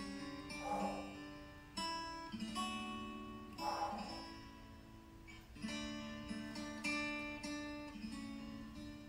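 Background music of plucked and strummed acoustic guitar, quiet, with notes struck every second or so.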